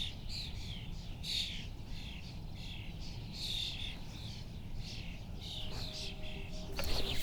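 Small songbirds chirping and singing, short high calls repeating throughout, over a faint low rumble.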